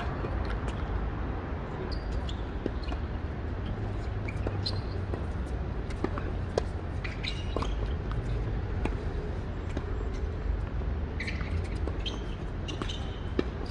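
Tennis balls being struck by rackets and bouncing on a hard court during a doubles rally: a string of sharp pops at irregular intervals over a steady low outdoor rumble.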